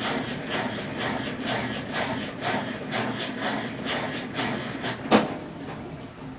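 Consul Facilite 10 kg top-loading washing machine agitating a load of dark clothes in its wash stage with a Brastemp BWL09 agitator: a steady motor hum with water and clothes sloshing about twice a second. A sharp click comes about five seconds in, and the sloshing fades after it.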